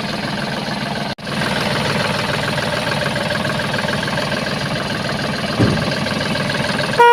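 Vehicle engine idling steadily, with a brief break about a second in. A car horn toots right at the very end.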